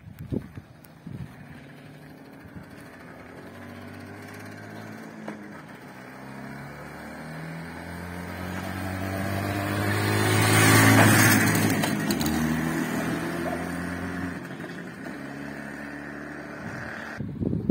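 IZh Jupiter 2K sidecar motorcycle's two-cylinder two-stroke engine running as it rides up, passes close and rides away. The engine grows steadily louder to a peak about eleven seconds in, then fades.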